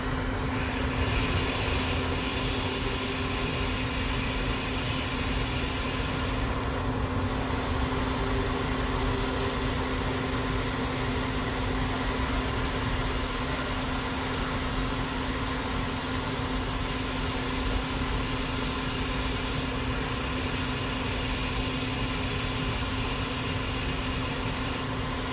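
Hot-air rework station blowing steadily while a surface-mount resistor is desoldered and replaced: an even rush of air with a constant hum.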